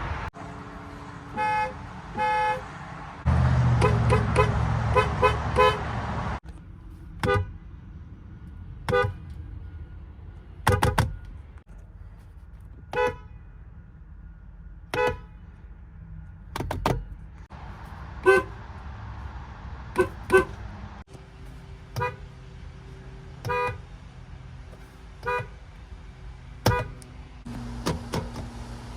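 Nissan and Infiniti car horns honked in short blasts, one car after another. First come two toots, then a quick run of about six honks over an idling engine. After that the horns sound one short blast every one and a half to two seconds.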